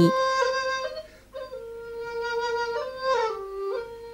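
Background music: a slow melody of long held notes that step from pitch to pitch.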